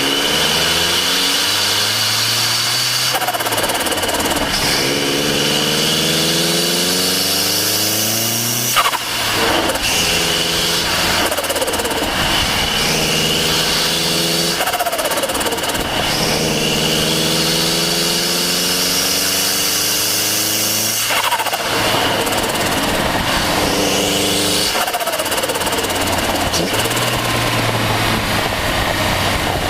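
Turbocharged Mazda MX-5 Miata engine and turbo, close up at the turbo, accelerating repeatedly with the revs climbing and dropping between gears. A sharp burst comes on lift-off about nine seconds in, with shorter release sounds near twenty-one and twenty-five seconds: turbo flutter and blow-off.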